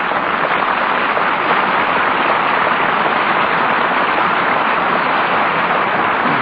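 Steady, loud hiss of static on an old off-air radio recording, with no speech or music over it.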